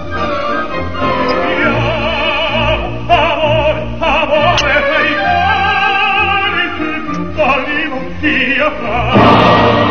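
Operatic singing with heavy vibrato over backing music with a sustained bass line.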